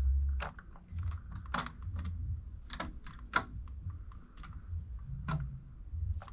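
Plastic Hess 2022 Flatbed toy truck being handled and turned on a wooden tabletop: irregular light clicks and knocks, with low thumps from the handling.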